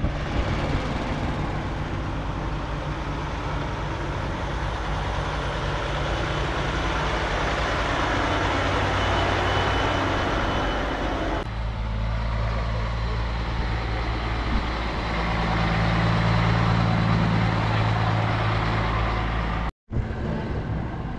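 Heavy diesel truck engines running: an even rushing noise at first, then after an abrupt cut about halfway in, a steady low idling drone.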